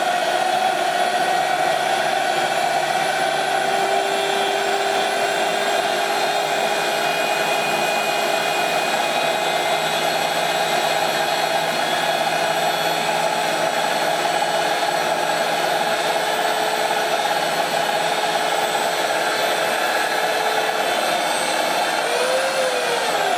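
Electric drill running steadily as the drive of a homemade cue lathe, spinning the shaft while a carpet-knife blade trims a newly glued leather cue tip. Near the end its pitch briefly rises and falls.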